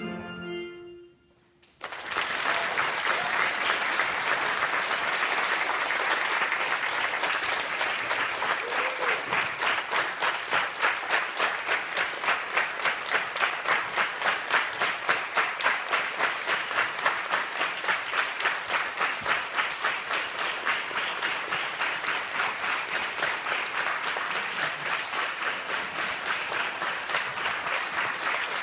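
Electronic keyboards end on a final chord, a second of silence, then an audience applauds. About ten seconds in the applause settles into steady rhythmic clapping in unison.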